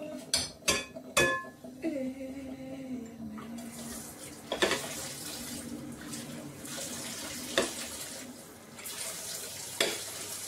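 Dishes being washed by hand at a stainless steel sink: ceramic plates clink several times in the first second or so, then the tap runs steadily from about three and a half seconds in, with a few single knocks of a plate against the sink.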